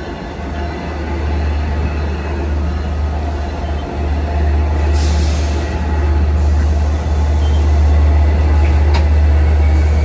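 Long Island Rail Road train running through the station: a heavy low rumble that grows louder, with a short burst of hiss about five seconds in.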